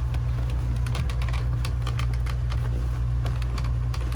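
Irregular light clicks and taps from hands working at a cockpit fitting, over a steady low hum.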